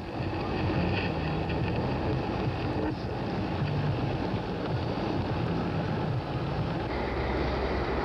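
Blizzard wind and the steady running noise of a vehicle, heard from inside the car through the windshield. Near the end a deeper steady engine hum comes in.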